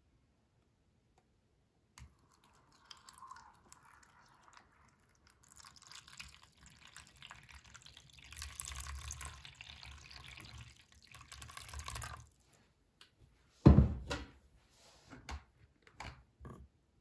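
Water poured in a stream into the two cups of a microwave egg poacher, splashing for about six seconds before stopping. A loud thump follows, then a few lighter knocks.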